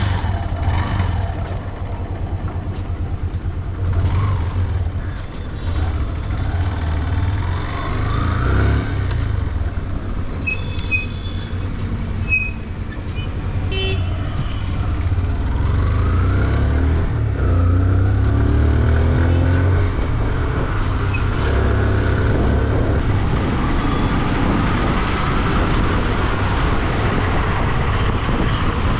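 Yamaha single-cylinder motorcycle engine running as the bike pulls away and rides on, with the revs rising several times as it accelerates through the gears. A few short high beeps sound about halfway through.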